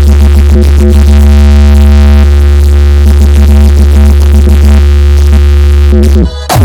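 Loud electronic DJ sound-check music: a heavy, continuous bass under steady synthesizer tones. It cuts out for a moment near the end.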